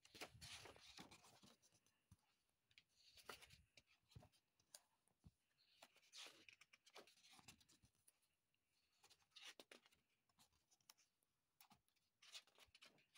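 Faint paper rustling as sketchbook pages are handled and turned by hand, coming in short bursts every few seconds.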